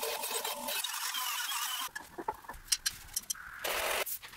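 Einhell bench grinder wheel grinding a metal sewing machine part, a steady hiss for about two seconds. Then a few sharp metallic clicks, and a brief loud scraping burst near the end.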